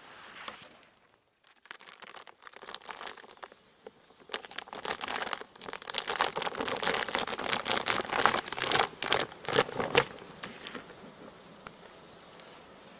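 A plastic sheet laid over a beehive's top bars crinkling and crackling as it is peeled back, a dense run of crackles lasting several seconds before it dies away near the end.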